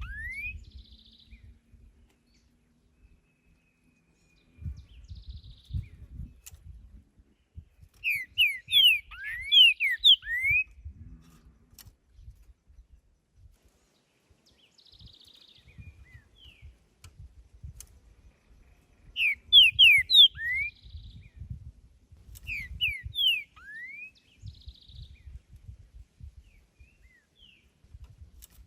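Green-winged saltator (trinca-ferro) singing: loud phrases of quick, clear, sliding whistled notes come about eight seconds in, again around nineteen to twenty-one seconds, and once more just after, with fainter buzzy notes in the gaps.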